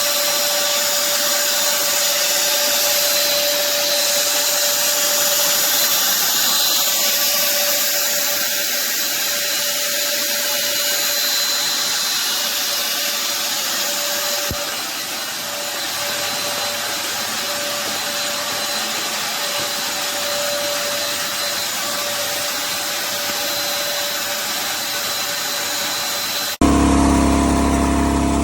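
Scheppach DC100 dust extractor running steadily: an even rush of air with a constant whine from the motor. Near the end it cuts off suddenly and a deeper, lower machine hum takes over.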